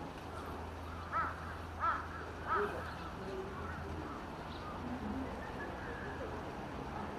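A crow cawing three times in quick succession, about two-thirds of a second apart, over a steady low hum.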